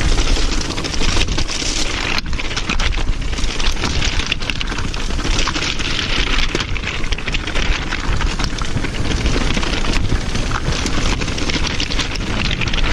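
Transition TR500 downhill mountain bike ridden over loose shale scree: tyres crunching and clattering on the rocks and the bike rattling, a dense steady crackle of many small impacts.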